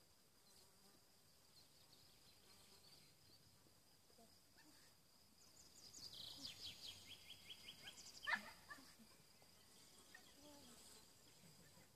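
Near silence: faint rural outdoor ambience with a steady high insect hum, a rapid chirping trill about six seconds in, and one short call just after eight seconds.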